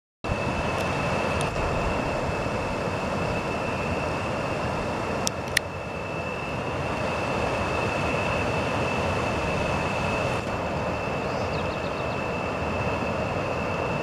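River water rushing and splashing over low rock cascades of a small waterfall: a steady rushing noise. A thin, steady high tone runs over it, and two brief clicks sound about five seconds in.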